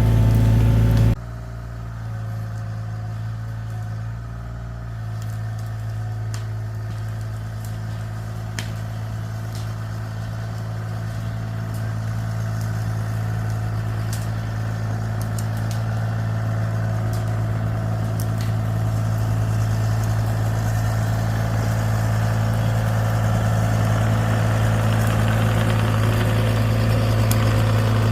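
Mini excavator engine running steadily at a constant pitch. Its level drops suddenly about a second in, then slowly builds back up.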